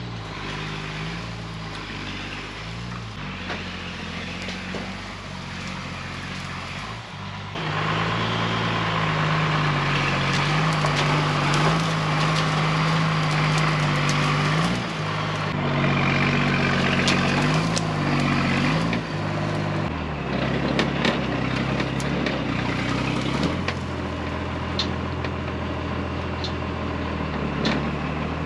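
Heavy truck engine pulling under load while towing another truck, its note rising and falling with the throttle. It works harder and louder from about eight seconds in, then settles back to a lower, steadier note around twenty seconds in, with scattered light clicks and knocks near the end.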